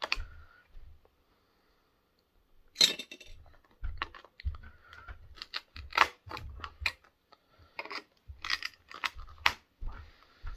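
Pliers prying a small metal shield cover off a circuit board: a run of irregular metallic clicks, clinks and scrapes that starts about three seconds in, after a short quiet pause.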